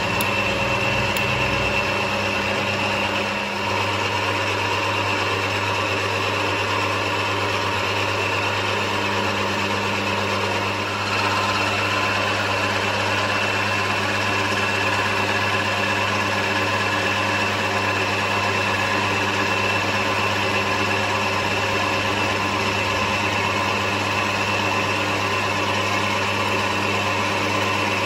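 Small metal lathe running steadily, spindle and gearing giving a constant hum made up of several steady tones as it turns an aluminium rod. The sound gets slightly louder about eleven seconds in.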